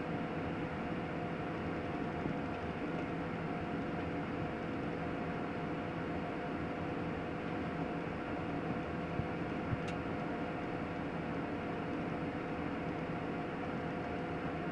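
Steady engine drone with two held tones, unchanging throughout, and one faint click about ten seconds in.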